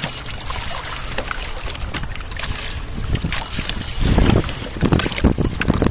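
Choppy water lapping and splashing against the side of a small boat, with wind buffeting the microphone; the buffeting grows much louder about four seconds in.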